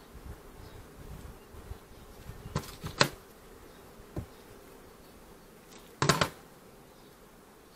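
Honeybees humming steadily around an open hive, with a few sharp wooden knocks and scrapes as frames and a hive tool are handled; the loudest come about three seconds in and in a short cluster about six seconds in.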